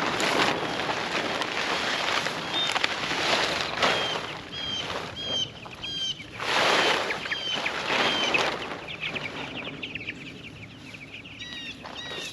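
Meat-bird chicks peeping in short, high chirps, over loud rustling swells from a tarp being pulled over the pen.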